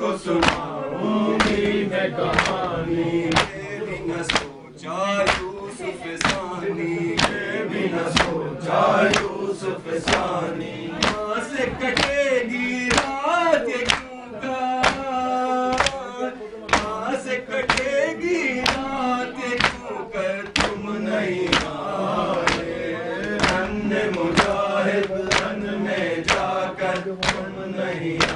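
Men's voices chanting a noha, a Shia mourning lament, in unison. It is kept in time by a steady beat of sharp slaps, about one and a half a second: mourners striking their chests in matam.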